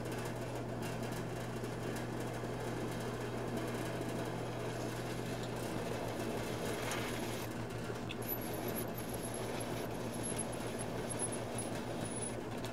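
Small metal lathe running steadily while a ground-down cutoff blade turns a small groove into a steel spacer. A thin high whine joins the motor hum from about eight seconds in and stops just before the lathe goes quiet.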